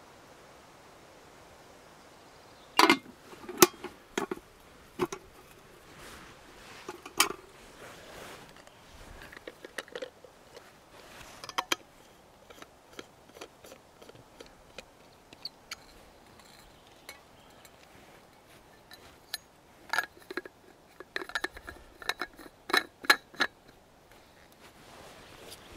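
Metal clinks and clicks of a steel vacuum flask being closed, its stopper and cup-lid screwed on. The knocks come in bunches: a loud cluster about three seconds in, a few more around seven and twelve seconds, and a quick run of them near the end.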